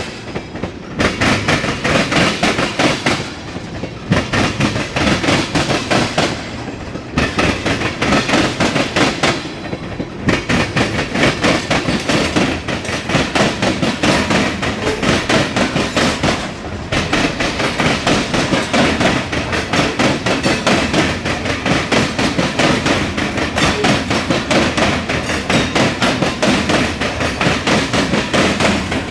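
Cars of a long mixed freight train rolling past, their wheels clicking rhythmically over the rail joints, with a few short lulls between groups of clicks.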